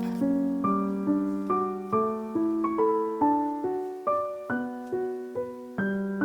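Background music: a gentle piano melody over a steady bass, notes struck about two to three times a second.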